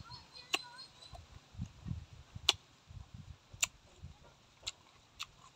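Close-up chewing of food with the mouth closed: soft, irregular low munching with several sharp wet mouth clicks spaced through it.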